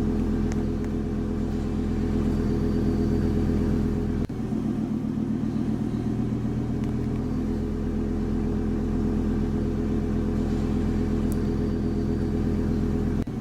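Simulated Blue Bird Vision school bus diesel engine idling steadily, a looped game engine sound. It dips briefly and restarts about four seconds in and again near the end.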